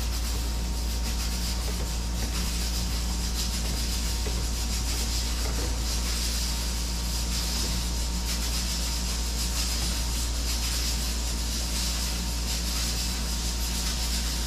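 A steady low hum with an even hiss over it, with a long spoon stirring juice in a tall plastic cup.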